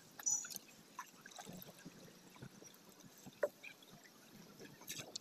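Faint water trickling and small splashes around a small wooden boat, with a few light knocks.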